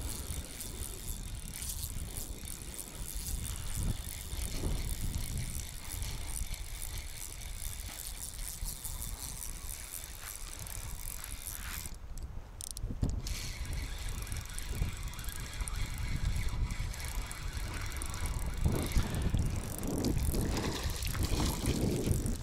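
Spinning reel being cranked to retrieve a lure, a steady mechanical whirring that stops briefly about halfway. Wind rumbles on the microphone throughout.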